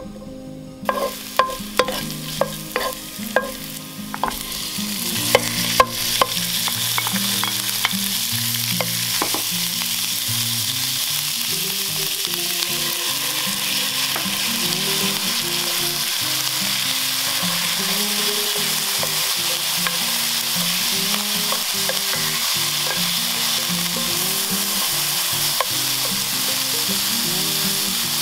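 Stir-frying in a nonstick pan: slices of ginger drop in with a few light clicks, then the oil starts to sizzle about four seconds in and settles into a steady sizzle as pork and chili fry.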